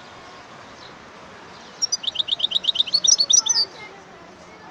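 European goldfinch singing: a fast run of repeated high, bright notes lasting about two seconds, starting about two seconds in.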